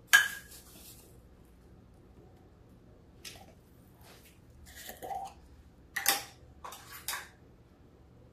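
A sharp knock right at the start with a brief hiss after it, then scattered light clicks and knocks of kitchen containers and utensils being handled around a ceramic bowl as a bouillon jar is picked up.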